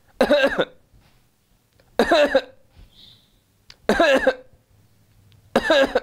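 A man coughing deliberately to demonstrate a cough in two paroxysms: four short coughs, about two seconds apart.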